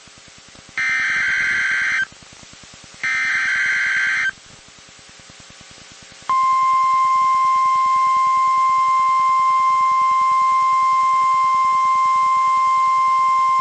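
Emergency Alert System SAME header: two harsh digital data bursts, each about a second long and a second apart, then the NOAA Weather Radio 1050 Hz warning alarm, a single steady high tone, starts about six seconds in. Together they signal the start of a new weather warning broadcast.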